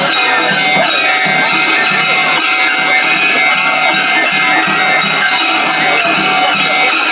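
Japanese street-festival music, loud and continuous, with metallic percussion over held steady tones.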